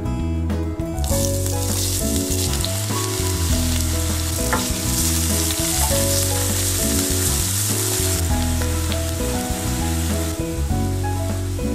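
Sliced shallots sizzling as they fry in hot oil in a stainless steel pan, stirred with a wooden spoon. The sizzle starts suddenly about a second in and eases somewhat near the end. Background music plays throughout.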